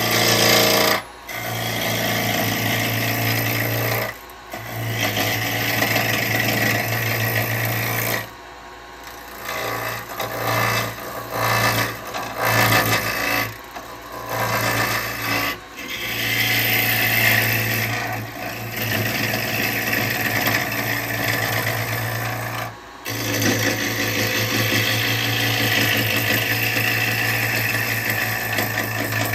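Half-inch spindle gouge taking rough cuts on a spinning alder blank on a wood lathe, with the lathe running throughout. Long cutting passes break off briefly several times, with a run of shorter, choppier cuts in the middle.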